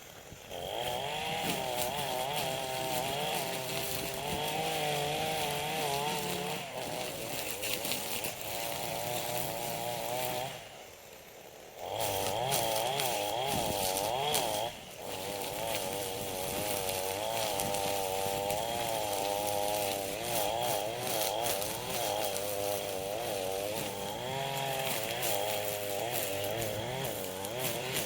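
Two-stroke chainsaw running under load, its engine speed rising and falling as it cuts. It drops out for about a second around ten seconds in, then picks up again, with a short dip a few seconds later.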